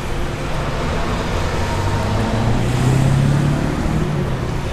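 A motor vehicle engine running nearby, its low hum rising a little and growing louder about halfway through, over steady outdoor noise.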